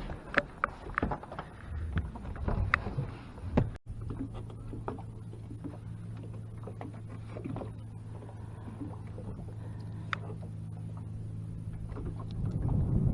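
Handling noise in a small fishing boat: several sharp knocks and clicks over the first four seconds. After a sudden break, a steady low hum runs on with only an occasional faint click.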